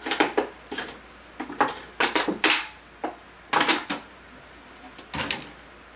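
Irregular clatter and scraping of hard objects handled on a work surface, in several short bursts: a soldering iron being jabbed and scraped at plastic while it is not yet hot enough to burn through.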